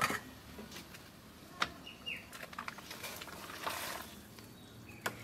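Chunks of beef and cow leg tipped from a plastic colander into a wok of boiling water, with a short rush of splashing about three and a half seconds in and a few scattered clicks. A bird chirps briefly twice in the background.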